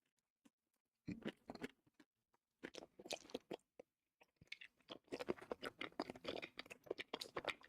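A person chewing and crunching food close to the microphone, in mukbang style. The sound comes in short bursts of crunchy bites after a brief silence, and becomes continuous chewing from about five seconds in.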